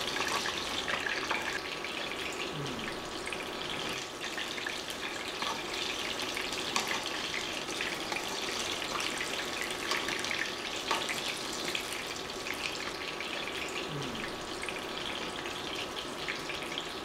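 Lumpiang Shanghai (pork spring rolls) frying in shallow oil in a pan: a steady crackling sizzle, with a few light clicks as metal tongs turn the rolls.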